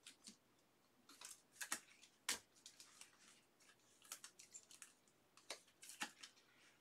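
Faint, irregular clicks and snaps of stiff chrome trading cards being handled and slid against one another, with one sharper click a little past two seconds in.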